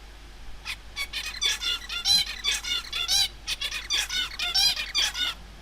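Adult male zebra finch singing its crystallized song, the tutor song that a young male copies while learning to sing. A quick run of short, rasping and pitched syllables starts about half a second in and is sung as a motif twice, stopping shortly before the end.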